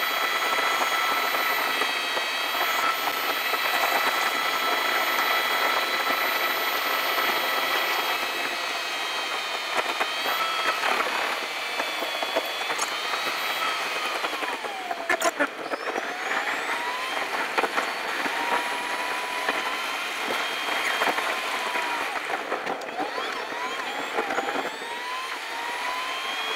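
Car cabin driving noise, engine and road, played sped-up so it becomes a steady high-pitched drone of several tones, with pitches that slide down and back up a few times in the second half.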